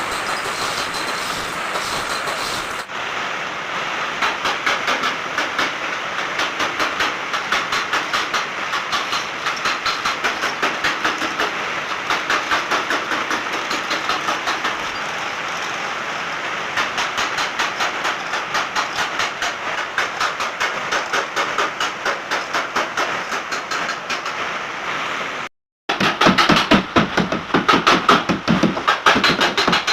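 Rapid, even knocking on the sheet-metal body of a crash-damaged Mitsubishi L300, several strikes a second, as the panels are worked back into shape. There is a brief break about 26 s in, after which the knocking comes in louder, uneven groups.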